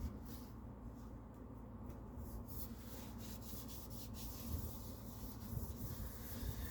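Faint rubbing with light scratchy ticks: the MacBook's casing being wiped to clear off dust.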